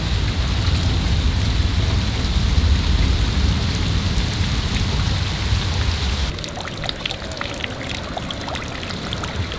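Heavy rain falling steadily, with a deep rumble beneath it for the first six seconds. About six seconds in the rumble drops away and individual raindrops landing in a puddle can be heard.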